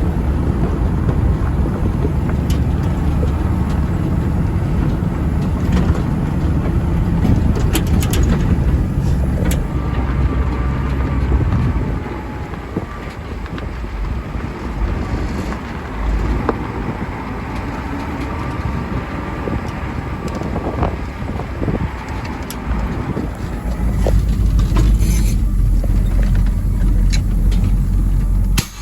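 Log truck's engine running with a deep, steady rumble, louder for the first twelve seconds, easing off in the middle and rising again a few seconds before the end, with a few light knocks and clicks.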